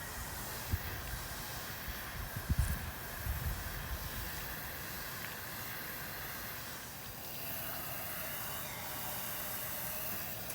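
Steady hissing background noise, with a few short low thumps in the first few seconds.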